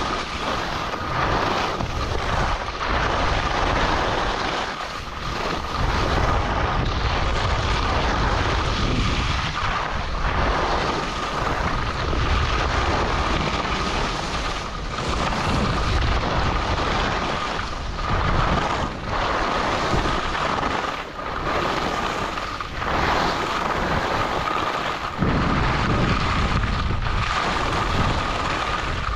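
Wind rushing over the microphone of a skier moving downhill, with skis hissing and scraping over snow; the rush swells and dips every second or two, with a thin steady whistle underneath.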